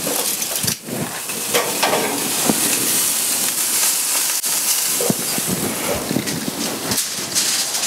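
Grilled lamb leg sizzling and hissing steadily on hot gas-grill grates as the meat is lifted off, with a few short clicks of metal tongs against the grate.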